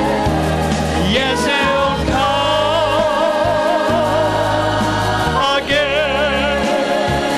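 Gospel vocal group of men and women singing long held notes with wide vibrato over accompaniment with a steady bass line.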